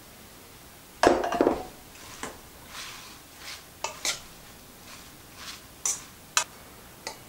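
Mixed salad greens being tossed by hand in a stainless steel mixing bowl: leaves rustling and brushing against the metal, with a few light clinks off the bowl. A louder clatter comes about a second in.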